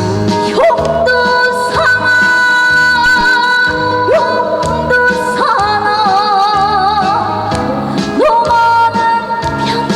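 Korean trot backing track playing a song's introduction: a lead melody of long held notes with vibrato and upward slides over bass and a steady accompaniment.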